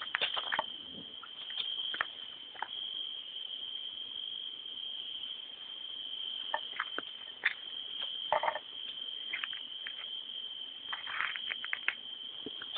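Crickets chirring as a steady, unbroken high drone, with scattered short rustles and clicks over it, the clearest about 2 s in, at 7 to 8 s, and a quick cluster near 11 s.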